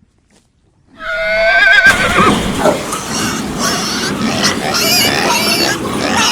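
A horse whinnies, a quavering call starting about a second in, followed by a dense jumble of overlapping animal calls.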